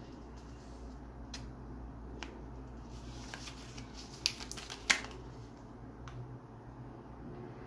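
A clear plastic blister pack being handled and turned over in the hand, its plastic crinkling and clicking now and then. Two sharp clicks, about four and five seconds in, are the loudest.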